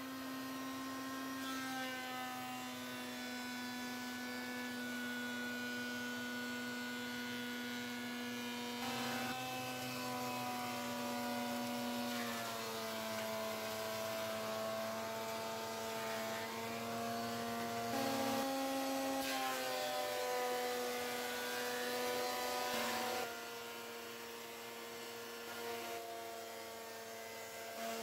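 Einhell BT-HM 254 jointer/thickness planer running: its 1500 W motor and cutter head give a steady whine that drops in pitch for a few seconds at a time as boards are planed, then rises again.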